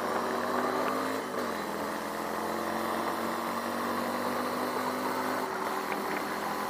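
Nevada 250 cruiser motorcycle's engine pulling steadily up a hill, held in a high gear without downshifting, over a steady rush of wind and road noise. Its pitch dips slightly about a second in, then holds.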